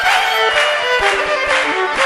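Instrumental folk-style music with a fiddle carrying the melody over a steady rhythm.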